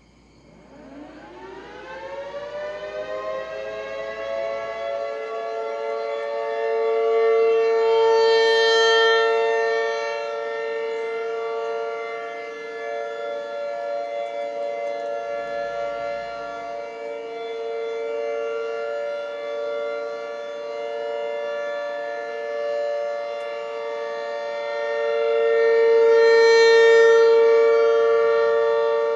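Rotating outdoor warning siren winding up from a low pitch over the first few seconds to a steady, multi-tone wail. It swells louder twice, about eight seconds in and again near the end, as the rotating head sweeps toward the listener.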